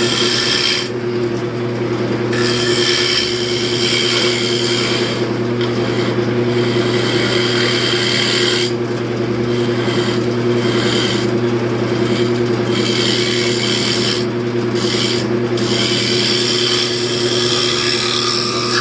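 Wood lathe running with a steady hum while a turning tool cuts into a spinning wooden bowl. The cutting is a loud hissing scrape in long passes, broken by several short pauses.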